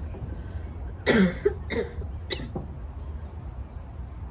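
A woman coughing in a short fit: one hard cough about a second in, followed by three or four smaller coughs.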